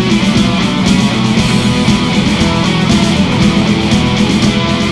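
Instrumental passage of a heavy metal song: electric guitars over bass and drums, with no singing.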